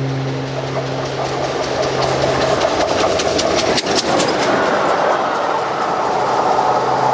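Train passing close by. A steady low hum gives way about two and a half seconds in to a rushing rumble of running noise. Its wheels click rapidly over the rail joints a little after three seconds in.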